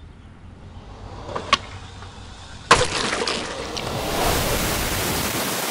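Cartoon sound effects. A low rumble, a short sharp crack about a second and a half in, then a loud crash near the three-second mark that gives way to a long, dense rushing noise as a skull monster rises.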